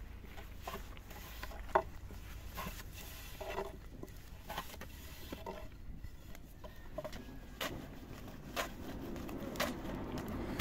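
Scattered light taps and knocks, about one a second, over a low steady hum, with a soft rustling noise building near the end.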